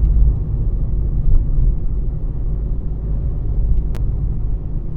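Low, steady rumble of wind buffeting the microphone outdoors, with one sharp click about four seconds in.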